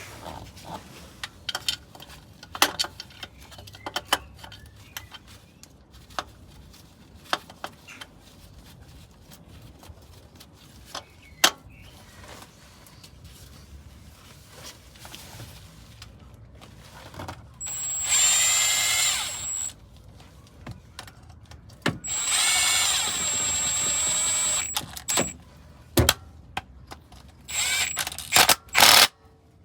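Power drill running in two bursts, about two and then three seconds long, with a steady high whine, then a few quick blips near the end; most likely driving in the bolts of the new belt tensioner and idler pulley. Before that, scattered clicks and knocks of tools and metal parts being handled.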